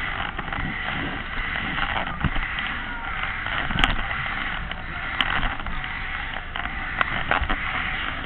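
Steady noisy rush of the Skate Jumper funfair ride in motion, heard from on board, with low rumble underneath and two sharp clicks about four and five seconds in.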